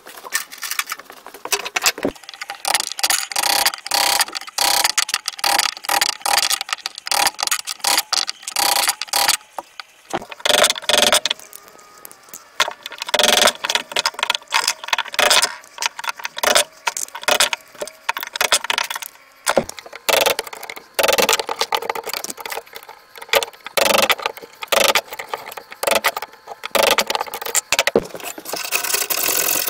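Steel hand tools knocking and scraping in an axe head's eye, clearing out the remains of the old wooden handle: quick irregular clacks and scrapes, with short metallic rings here and there.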